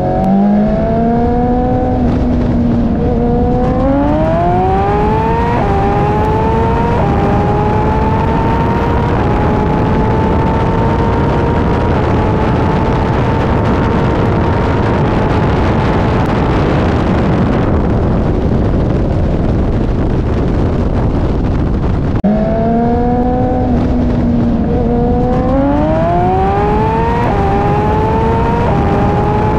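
Sportbike engine accelerating wide open in a roll race, its pitch climbing and dropping back at each upshift, then holding high at speed under heavy wind roar. About 22 seconds in, a second run starts the same way.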